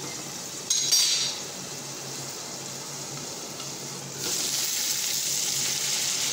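Pork pieces frying in an aluminium kadai. The sizzle is muffled under the lid, with a short metal clatter about a second in. About four seconds in the lid is lifted and the sizzling gets louder.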